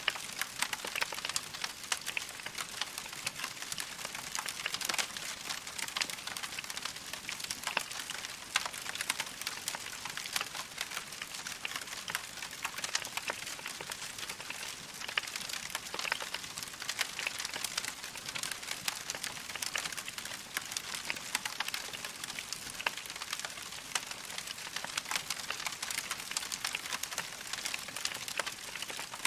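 Wood fire crackling in a fireplace: a steady hiss of flame with many small, quick pops and snaps.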